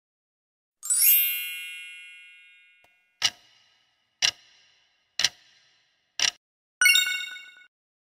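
Quiz-game sound effects: a bright chime rings out about a second in and fades away over about two seconds, then a timer ticks four times, one tick a second, while the next question waits for an answer, and a shorter chime sounds near the end.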